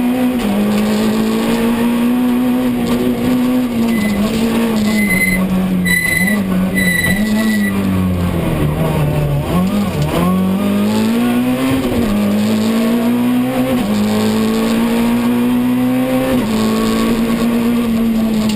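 Citroën C2 R2 rally car's 1.6-litre four-cylinder engine heard from inside the cabin, revving hard through the gears: the pitch climbs, drops sharply at each gear change and climbs again. A few short high beeps sound around the middle.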